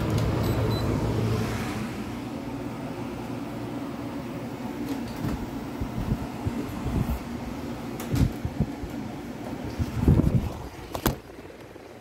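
Old air conditioner starting up after a night switched off, running with a steady motor hum; its owner finds the fan a little odd. A few knocks and bumps from handling come near the end.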